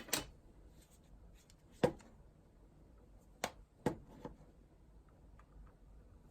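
Hard plastic keycaps being handled on a keyboard: about six separate sharp clicks and knocks, the loudest about two seconds in.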